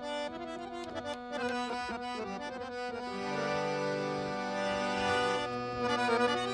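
Instrumental opening of a Punjabi Sufi kafi: a harmonium plays held chords over a steady drone. Short quick notes come in the first couple of seconds, then a fuller, louder chord is held from about the middle.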